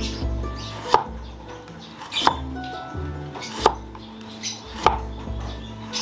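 Background music with a sharp knock about every second and a half.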